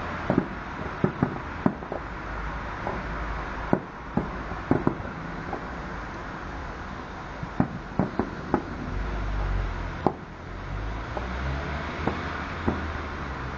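Aerial fireworks shells bursting at a distance: a string of sharp bangs at irregular intervals, some in quick clusters, over a steady low background rumble.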